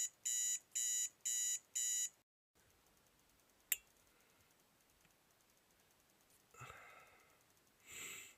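Digital alarm clock beeping, about two beeps a second, until it stops about two seconds in. Then a single sharp click, and later two short breathy sounds from a man stretching in bed.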